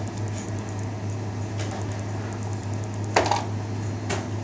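Steady low electrical hum, with two short sharp knocks about three and four seconds in, the first the louder.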